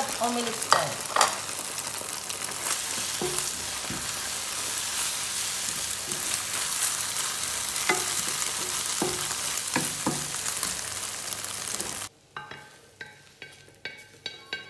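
Egg, bitter melon and onion sizzling as they fry in a pan, with an occasional knock and scrape of a utensil as they are stirred and scrambled. The sizzling cuts off suddenly near the end, and a few light clinks follow.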